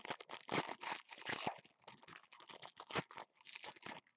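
Foil wrapper of a 2015 Prestige football card pack being torn open and crinkled by hand: a dense crackling rustle that stops suddenly near the end.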